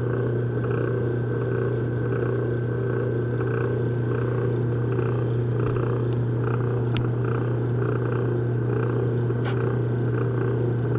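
Electric buffing machine running with a steady low hum, its spinning leather wheel polishing a thunderegg held against it with cerium oxide: the final polishing stage.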